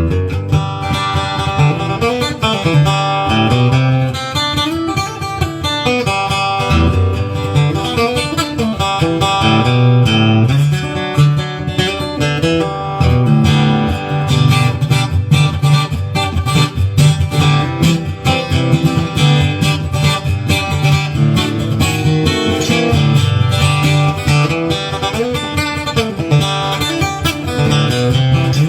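Washburn acoustic guitar fitted with a K&K Pure Mini three-transducer bridge-plate pickup, played without a break: picked melody notes mixed with strummed chords, heard through the pickup.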